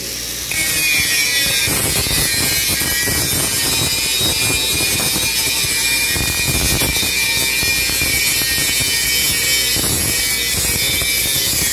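Electric arc welding on steel plate: a steady, dense crackling sizzle of the arc, picking up about half a second in.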